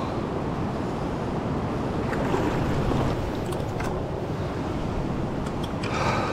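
Steady rush of river water, with a few faint clicks.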